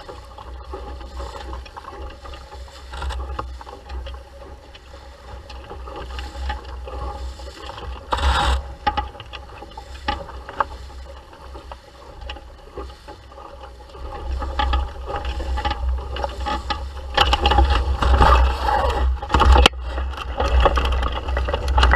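Wind buffeting the microphone over water rushing and splashing along the hull of a Laser 2 sailing dinghy under way, with scattered knocks and scrapes from the boat. A loud burst of spray about eight seconds in, and heavier splashing and wind gusts in the last few seconds.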